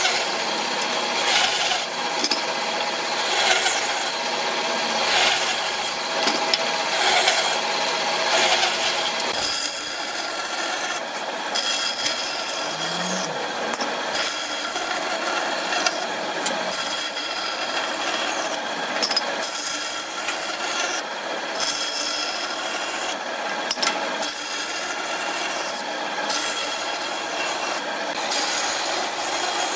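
Wood being rasped by hand: repeated scraping strokes, coming as separate strokes at first and then running on more evenly with short breaks.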